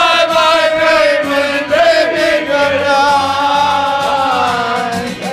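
A man singing one long held note that slowly falls in pitch, breaking off just before the end.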